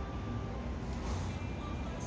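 Background music playing over a steady low hum.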